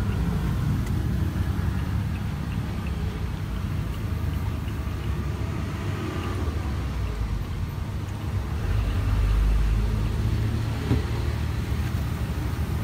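Road traffic rumbling steadily, with a vehicle passing louder about nine seconds in.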